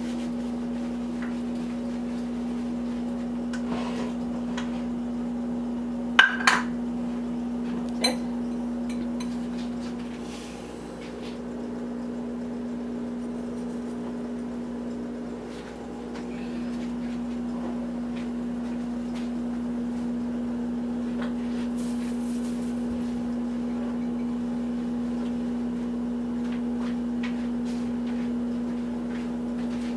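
A steady low hum from a kitchen appliance, with a few sharp clinks and knocks of kitchenware being handled about six and eight seconds in.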